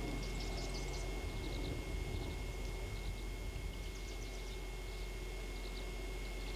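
Faint high chirps and twitters of small birds in short bursts, a few times, over a steady low rumble and a constant faint high tone.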